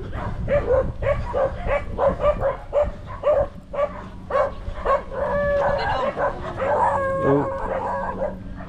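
Dog barking repeatedly, about two barks a second, with a couple of longer drawn-out calls past the middle.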